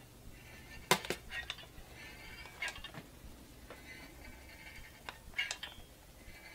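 Cabela's jerky gun being squeezed: a few irregular sharp clicks as the trigger ratchets the plunger forward, the loudest about a second in, with faint squeaking as the nozzle slides along the dehydrator tray pressing out strips of ground venison.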